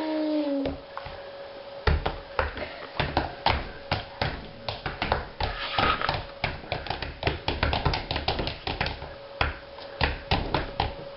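Irregular light taps and clicks from a small plastic pot being handled in a toddler's hands. They start about two seconds in and come several times a second, over a faint steady hum.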